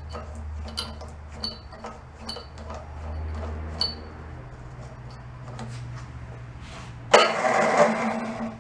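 Small clicks and metallic clinks of hands working at the starter gear on a lawn mower engine, then near the end its electric starter motor whirs loudly for about a second on jump-pack power. The starter is slowing down and barely turning the engine, a sign of a weak starter that does not engage properly.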